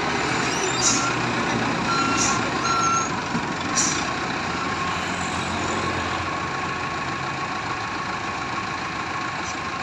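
Compact wheel loader's diesel engine running steadily while it tips its bucket of dirt into a dump truck bed, with a few sharp clanks and some short high beeps in the first few seconds.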